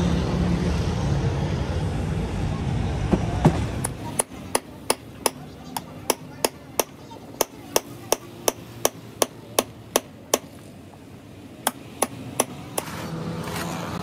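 Steady noise, then from about four seconds in a quick run of sharp hammer taps, about three a second, with a short pause before a few more near the end.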